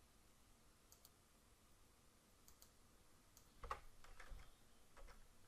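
Faint computer mouse clicks, then a quick run of computer keyboard keystrokes from about two-thirds of the way in as a number is typed.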